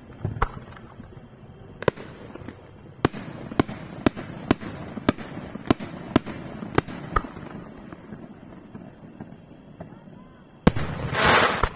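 Aerial firework shells bursting in the night sky: a string of sharp bangs about every half second, a short lull, then one loud bang near the end followed by about a second of dense crackling hiss.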